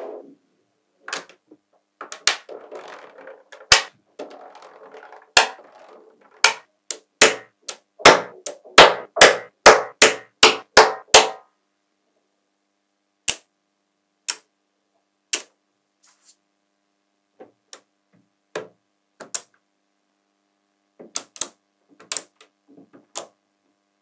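Small metal magnetic balls snapping onto a magnetic-ball structure with sharp clicks. Single clicks at first with a soft scraping between them, then a quick run of about ten clicks at roughly three a second around the middle, then scattered clicks again.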